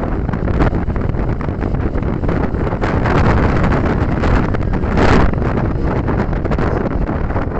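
Strong storm wind buffeting the microphone: a loud, rumbling rush with a stronger gust about five seconds in.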